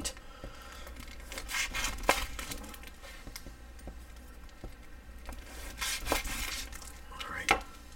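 Plastic wrapping on a salami crinkling and tearing as it is handled, in a few short bursts, with a sharp click about two seconds in and another near the end.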